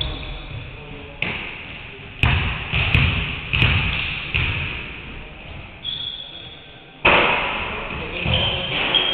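Basketballs bouncing and thudding on a hardwood gym floor, each sharp thud echoing around the large hall; several come in quick succession from about two to four and a half seconds in, then again near the end. Two brief high squeaks sound in between.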